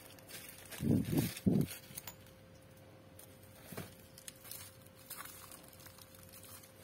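Plastic bubble wrap crinkling and rustling as small ceramic teacups are handled and unwrapped, with a few low dull bumps about a second in.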